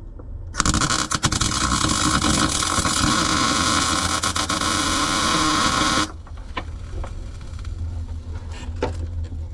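Electric arc welding a steel nut onto the stub of a sheared lag bolt: the arc's harsh, even hiss starts about half a second in, runs steadily for about five and a half seconds and cuts off suddenly, leaving a low hum.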